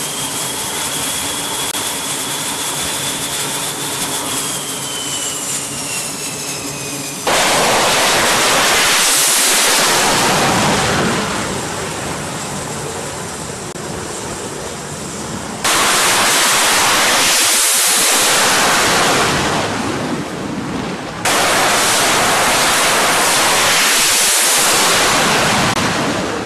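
Fighter jet engines whining at high power on a carrier flight deck, then three loud jet takeoffs in turn. Each starts suddenly as a jet is catapulted off the deck and fades over a few seconds as it goes past and away.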